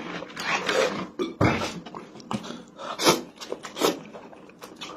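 Eating sounds close to the microphone: instant noodles slurped up from chopsticks and chewed, in an irregular run of short slurps and mouth noises.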